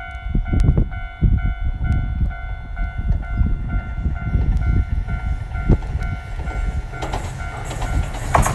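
A level-crossing warning bell ringing over and over in an even rhythm, over a low rumble. Near the end the noise of an approaching Enshu Railway 2000-series electric train grows quickly louder and covers the bell as the train nears the girder bridge.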